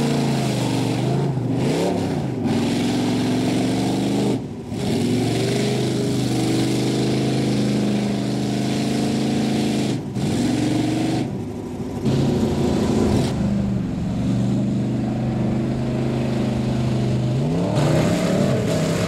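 Lifted mud truck engines running hard at high revs, the pitch sagging and climbing again several times as the trucks churn through mud, with a few abrupt breaks in the sound.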